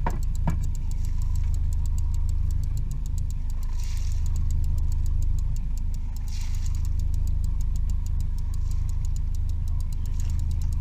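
Fishing boat's engine idling steadily: a low hum with a fast, even ticking over it, and two brief hisses about four and six seconds in.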